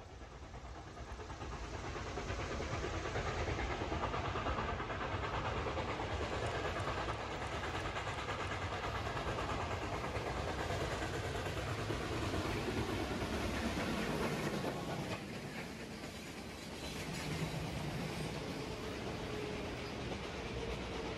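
Reading & Northern steam excursion train, double-headed by locomotives 2102 and 425, rolling past on the rails with a steady clatter of wheels over rail joints.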